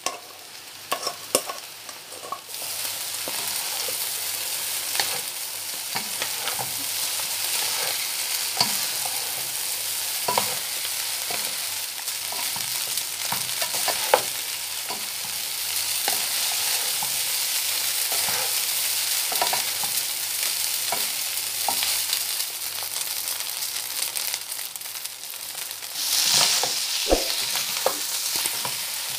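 Vegetable fried rice being stir-fried in a nonstick pan: a steady sizzle with the repeated scrape and tap of a wooden spatula tossing the rice. The sizzle comes up a couple of seconds in and grows louder near the end.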